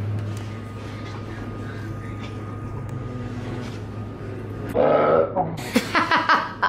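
A low steady hum, then a person's voice breaking in loudly about five seconds in.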